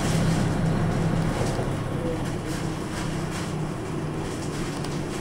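Nissan Diesel Space Runner RA city bus heard from inside the cabin: its diesel engine running with a steady low hum over road noise as the bus drives, getting a little quieter about two seconds in.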